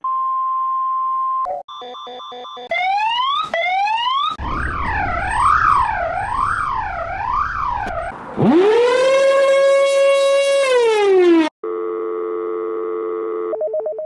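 A string of emergency alarm and siren sounds played at four times speed, changing every few seconds: a steady tone, short pulsed beeps, rising glides, a fast up-and-down wail, then a siren that winds up, holds and winds down, ending on a steady chord of several tones.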